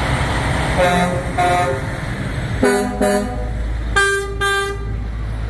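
Vehicle horns honking in quick double toots, three pairs in a row, each pair at a different pitch, over the low rumble of idling engines.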